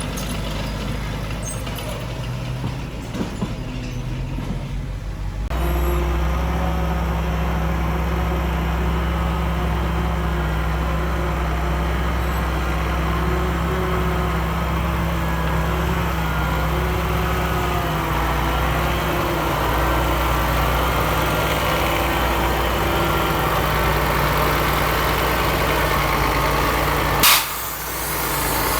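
Heavy diesel engine of earthmoving machinery running steadily under load, growing louder and fuller about five seconds in. Near the end comes one short, sharp hiss.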